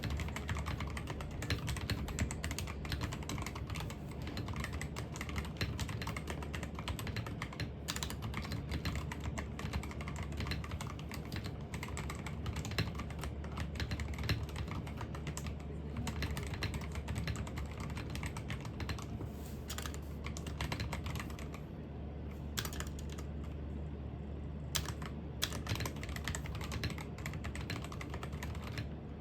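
Typing on a computer keyboard: fast, irregular key clicks that run on continuously, over a steady low hum.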